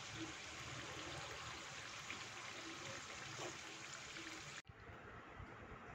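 Gujiya pastries deep-frying in hot oil in a kadai: a steady faint sizzle that cuts off suddenly about four and a half seconds in, leaving quieter room sound.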